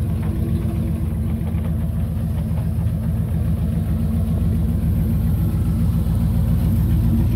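Dodge pickup truck's engine running at low speed as the truck rolls slowly up, growing a little louder as it comes closer.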